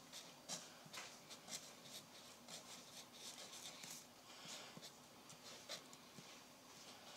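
Faint scratching of a pen or marker writing on paper, in short uneven strokes.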